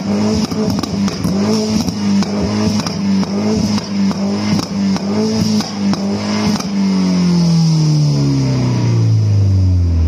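Peugeot 208 hatchback's engine revved and held high with an uneven, stuttering note, then the revs falling away steadily over the last three seconds or so.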